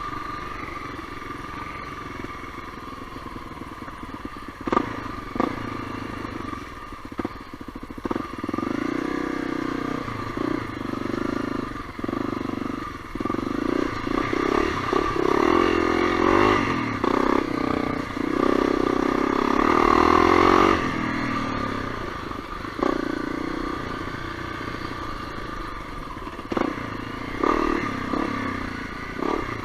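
Honda CRF250L's single-cylinder four-stroke engine running on a trail ride, working harder and louder for several seconds past the middle before easing off. Sharp knocks and clatter come through now and then, loudest near the start and again near the end.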